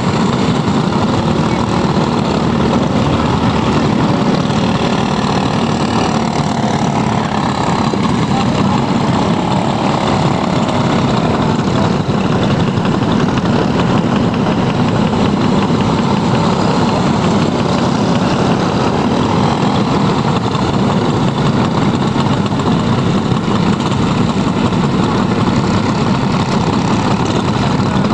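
Several Briggs & Stratton Animal four-stroke kart engines running as a pack of racing karts laps the track: a steady, loud engine drone with no breaks.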